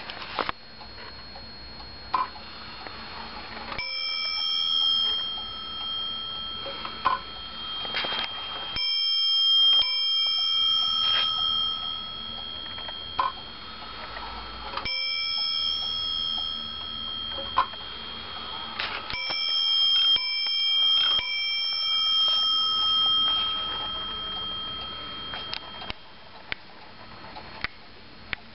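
Warmink Zaanse wall clock's eight-day movement striking its bell several times, a few seconds apart, each strike ringing on and slowly dying away, with scattered clicks between.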